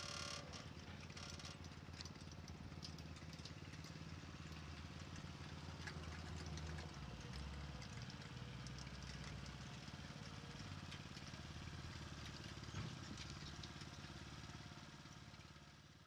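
An engine running steadily at an even, low pitch, with scattered light clicks and clatter over it; it fades out near the end.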